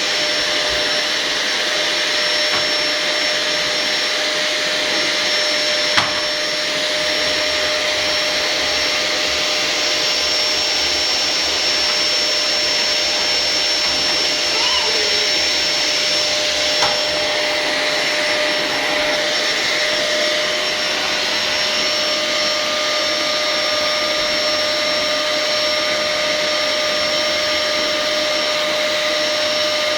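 Household vacuum cleaner running steadily: a continuous hiss of rushing air with a steady high motor whine. One sharp knock about six seconds in.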